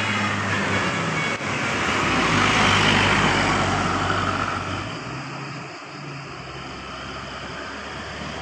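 A bus driving past, its engine and tyre noise swelling to a peak about two to three seconds in and fading after about five seconds, leaving a low engine hum.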